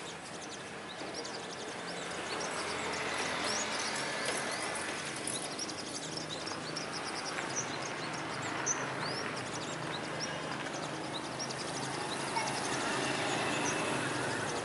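Small birds chirping and calling in quick, repeated short notes over the rush of road traffic, which swells as vehicles pass a few seconds in and again near the end.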